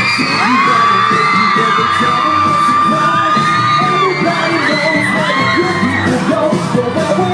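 Crowd of fans screaming and whooping, many high voices overlapping, one scream held for about three seconds near the start, with music playing underneath.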